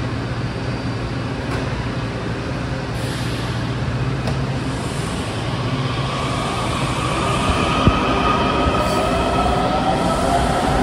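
Washington Metro 7000-series subway train pulling out: a steady low hum, then a rising whine from the propulsion motors about halfway through as it picks up speed. One sharp click near the end.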